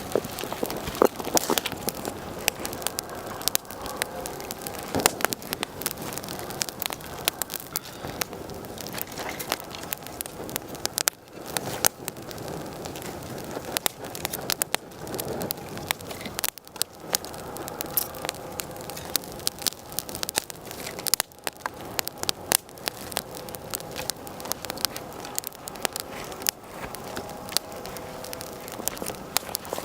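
Wood fire crackling, with frequent irregular sharp pops over a steady hiss of burning.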